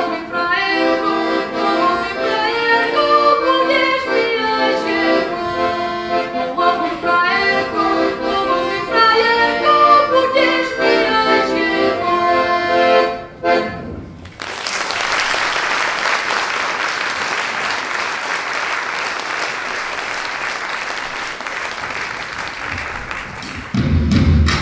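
Accordion playing a tune that ends about thirteen seconds in, followed by steady applause; a few low thumps come in near the end.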